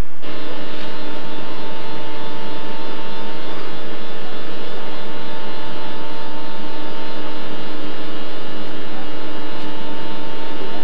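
Stationary TGV Atlantique electric power car humming steadily, a loud whine of several held tones over a rushing noise from its running equipment. It cuts in abruptly right at the start and holds level without rising or falling.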